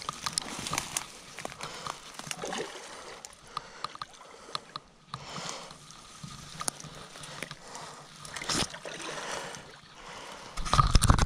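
Creek water sloshing and splashing as a small hooked carp is played in close at the water's edge, with scattered short clicks and knocks. A loud low buffeting sound starts about ten and a half seconds in.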